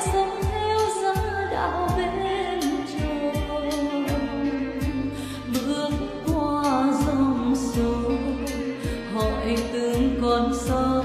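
A woman singing a slow melody into a microphone, holding long notes and sliding between pitches, over a backing track with bass and a steady drum beat.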